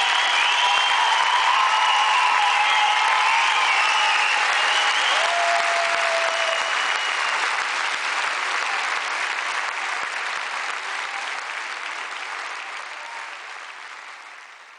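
Concert audience applauding and cheering, with high-pitched shouts and whistles over the first half, the sound fading out steadily toward the end.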